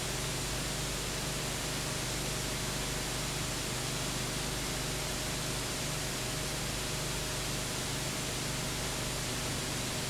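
Steady hiss with a low electrical hum and nothing else: the noise floor of a transfer of silent home-movie film.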